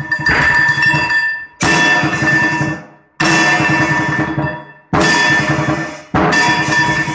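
Percussion music: loud struck hits about every one and a half seconds, each ringing out and fading before the next.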